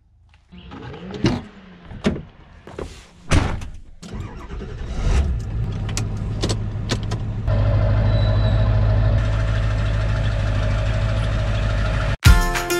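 A few knocks and clicks, then a pickup truck's engine starting with the ignition key about five seconds in and running steadily, a little louder from about seven seconds. Music cuts in sharply near the end.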